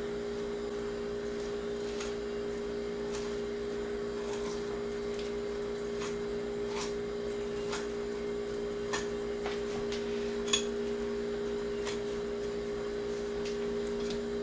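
A steady electrical hum, with faint scattered clicks and scrapes of a sharp knife slicing through a northern pike's flesh and along its bones on a countertop.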